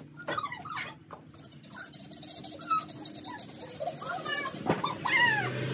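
Guinea fowl squawking in a fast, high-pitched chatter like an army of crazed chipmunks, starting about a second and a half in, with a few louder bending calls near the end.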